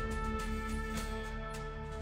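Background music with held notes and light percussive taps.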